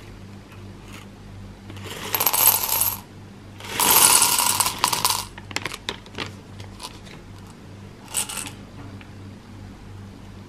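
Hard candy-coated Reese's Pieces poured from the bag into a glass tumbler, clattering against the glass and each other. There are two main pours, about two and four seconds in, then a few scattered clicks and a short rattle near the end.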